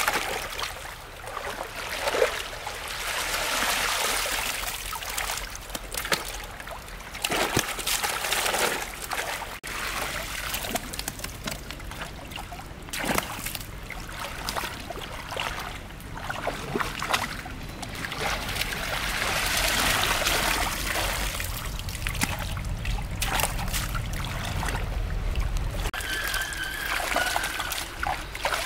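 Water splashing and trickling, with irregular splashes and sloshes throughout. A low steady rumble runs underneath from about ten seconds in.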